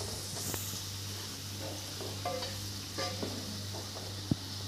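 Onion, tomato and spice masala sizzling in a non-stick kadhai while a wooden spatula stirs and scrapes it around the pan, with scattered light clicks and one sharper knock of the spatula near the end.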